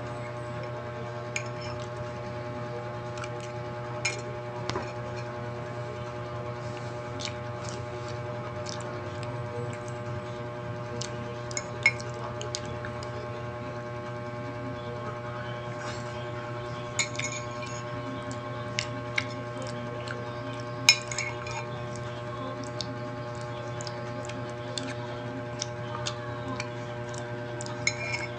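Metal spoon scraping and clinking against a ceramic mug while scooping mashed avocado: scattered sharp clinks, the loudest about 12 and 21 seconds in, over a steady hum.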